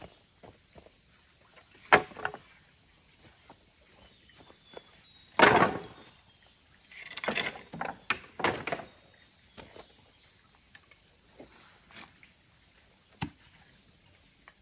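Scattered sharp knocks and short scraping sounds; the loudest are a knock about two seconds in and a half-second scrape about five and a half seconds in, with a cluster of knocks between seven and nine seconds. A steady high hiss runs underneath, with a short chirp near the end.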